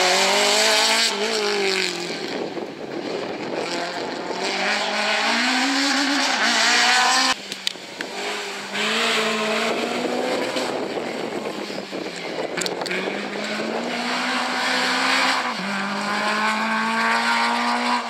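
Two Renault Clio rally cars driving past one after the other at full throttle, their four-cylinder engines revving up and dropping back with each gear change. The sound cuts off suddenly about seven seconds in, between the two cars.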